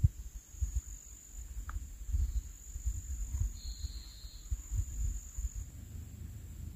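Insects buzzing in one steady, high-pitched drone, with a second, lower tone for under a second about three and a half seconds in. Irregular low gusts of wind rumble on the microphone throughout.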